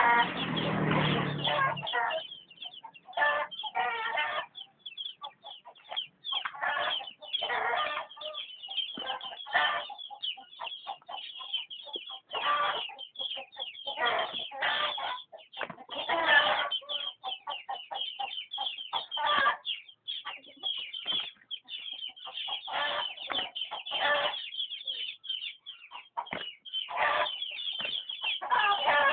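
Chickens clucking and squawking in many short, irregular bouts, with a brief lower sound mixed in during the first two seconds.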